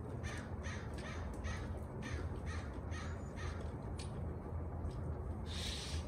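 A crow calling a rapid series of about eight harsh caws, about two or three a second, that fades out after three seconds or so. A short rushing noise follows near the end.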